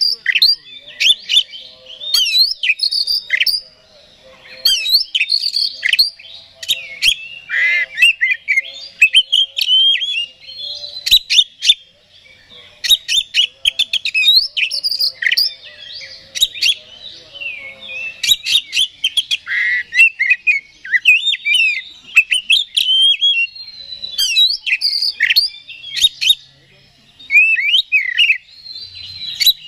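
Male Oriental magpie-robin (kacer) in full, loud song: a varied run of sharp whistles, sliding notes and quick chattering notes, in phrases broken by short pauses. This is the kind of song used as a lure to rouse other magpie-robins.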